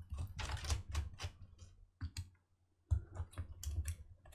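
Irregular small clicks and taps of a screwdriver and a metal plate being worked against a laptop's plastic top case as the screws holding the keyboard's metal backing plate come out. There is a brief lull a little past halfway.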